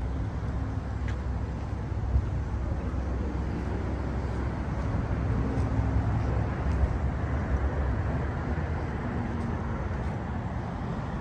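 Steady outdoor traffic noise with a low, uneven rumble of wind on the microphone.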